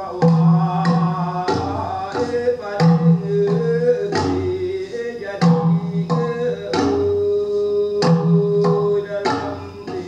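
Recording of a Temiar healing song (noñ): a voice sings long held notes over a steady beat of bamboo tube stampers, about one and a half strokes a second, alternating a lower and a higher pitch.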